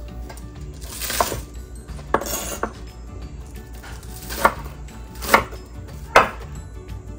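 Kitchen knife chopping green onions on a wooden cutting board: a handful of single, sharp chops about a second apart, the last three the loudest.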